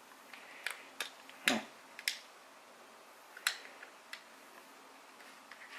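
Scattered sharp plastic clicks from a windshield phone mount holder being handled while its clamp is worked, about six in all with the loudest about a second and a half in.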